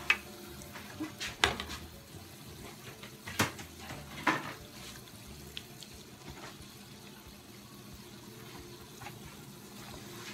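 Cornbread batter balls deep-frying in a pot of hot oil: a steady bubbling sizzle. A few sharp knocks of the metal skimmer come in the first half.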